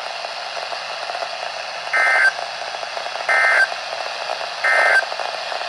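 Emergency Alert System end-of-message (EOM) data signal: three short, identical bursts of warbling digital tones, about a second and a third apart, over radio hiss, marking the end of the severe thunderstorm warning.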